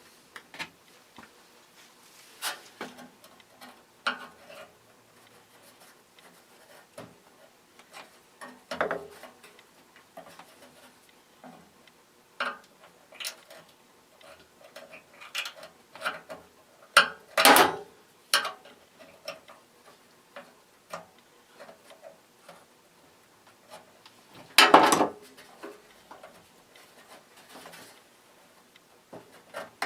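Scattered clicks, taps and scrapes of metal fan parts and tools being handled while the fan motor's lead wires are unclipped and the motor is disconnected, with two louder knocks about 17 and 25 seconds in.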